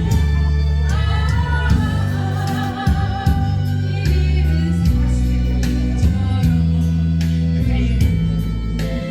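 A slow Korean ballad sung live over band accompaniment with a steady bass line and drums; the voice, with a wavering vibrato, is clearest in the first few seconds.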